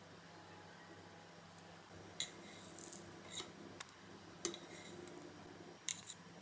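Chicken patty frying in a little hot oil in a pan: faint sizzle with scattered sharp pops and crackles, over a low steady hum.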